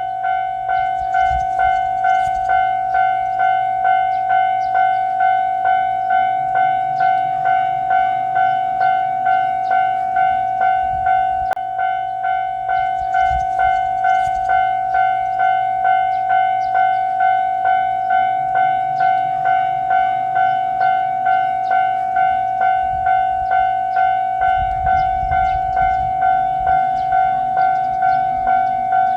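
Japanese railway level-crossing warning bell ringing steadily, about two dings a second, over a low hum: the crossing is signalling that a train is approaching.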